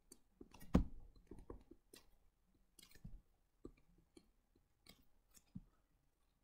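Faint, irregular taps and clicks of a stylus writing on a tablet screen, with one louder tap about three quarters of a second in.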